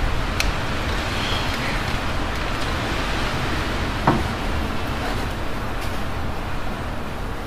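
Steady low rumble and hiss of background noise, with a light click near the start and a single knock about four seconds in.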